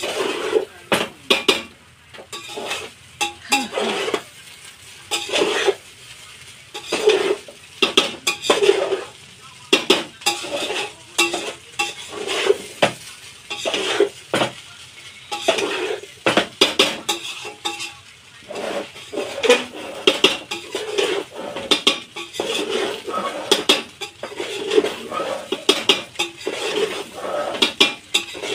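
A cooking spoon stirring and tossing fried rice with scrambled egg in a large aluminium pot, with irregular scrapes and knocks of the spoon against the metal pot.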